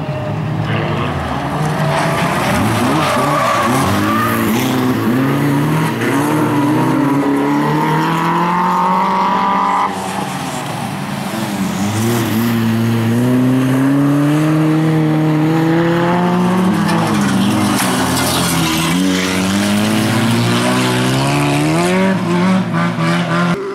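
Bilcross cars' engines revving hard through a corner, the pitch climbing and dropping again and again with throttle and gear changes, over the noise of tyres skidding on gravel. The sound changes abruptly about ten seconds in, where the footage is cut.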